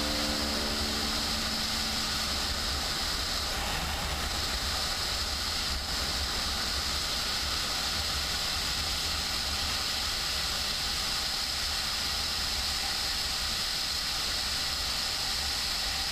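Steady rush of wind and road noise on a motorcycle cruising at highway speed, an even hiss with a low rumble underneath. A music track fades out in the first second or two.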